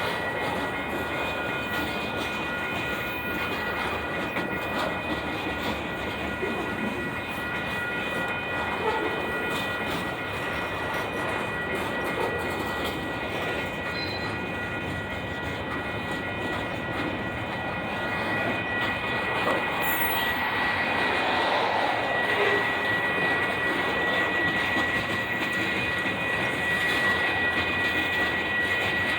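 A long freight train's cars rolling past: a steady rumble with a steady high-pitched wheel squeal over it, growing somewhat louder after about 18 seconds.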